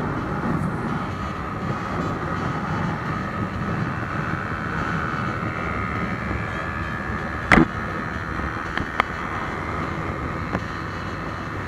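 Honda 150 cc fuel-injected motorcycle engine running flat out at high speed, about 138 km/h, with wind rushing past the microphone. A sharp knock comes about two-thirds of the way through, followed by a few faint clicks.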